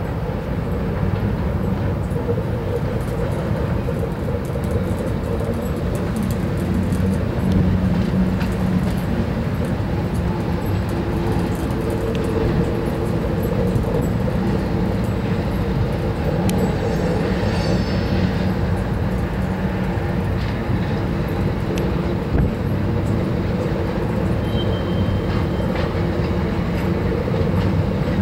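GE ES40DC diesel-electric locomotive's V12 diesel engine running with a steady low rumble as the freight train approaches and passes.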